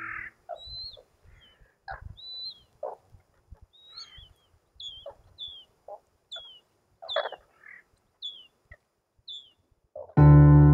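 Birds calling: a run of short, high chirps, many dipping in pitch, mixed with lower, harsher calls.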